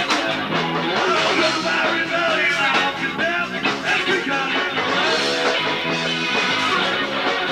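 Live rock band playing: guitar, bass guitar and drum kit with a steady beat, and a bending, sliding melody line over it.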